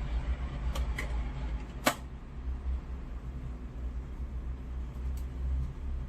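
Steady low mechanical hum and rumble, with a few sharp clicks, the loudest about two seconds in.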